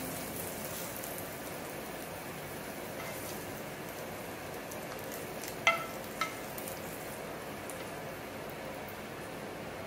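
Pan-seared scallops and the fat left in a hot skillet sizzling steadily. About halfway through, a utensil clinks twice, half a second apart, with a short ring.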